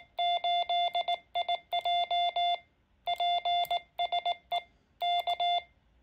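Morse code sidetone from a Quansheng UV-K5 handheld radio: a single steady-pitched beep keyed on and off in dots and dashes by a cheap paddle key, in several groups with short pauses between them. It is the operator's own CW transmission, which the radio decodes as a sign-off ending "PSE K", and it stops a little before the end.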